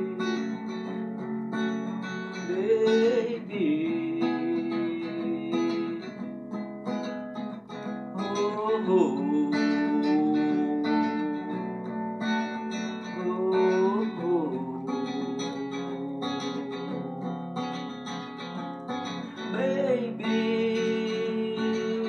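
Acoustic guitar strummed steadily under a man's singing voice. The voice slides up into long held notes, four times.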